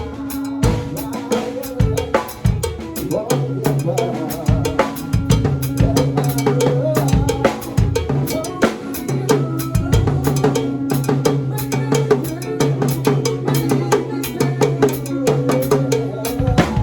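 Instrumental music track: a busy drum-kit beat with kick and snare hits over sustained low bass notes.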